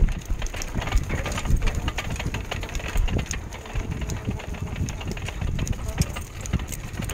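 Dog cart with spoked bicycle-type wheels rolling fast over a rough dirt track, its metal frame rattling and clicking constantly over a low rumble from the ground.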